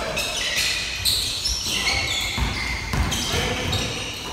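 Basketball game sounds: a ball bouncing on a gym floor, with a few low thumps, and sneakers giving short high squeaks on the court.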